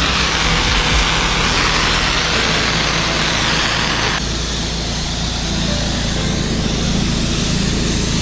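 12 GPM pressure washer's engine running steadily, with the hiss of water spraying from the wand; about four seconds in the spray hiss drops off suddenly while the engine keeps running.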